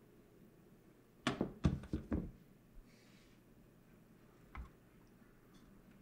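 Sharp clicks and knocks of a graphics card being handled out of a desktop PC case: a quick run of them a little over a second in, then one fainter knock later.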